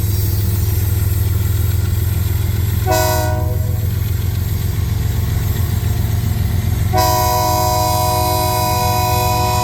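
Diesel freight locomotive's multi-chime air horn: one short blast about three seconds in, then a long blast from about seven seconds in, over the steady low rumble of the locomotive engines.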